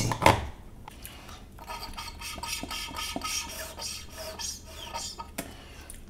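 Scraping and rubbing of the washing machine's hard plastic detergent dispenser housing as it is handled and probed with a small tool, a rough, scratchy run of small strokes, with a sharp plastic click near the end.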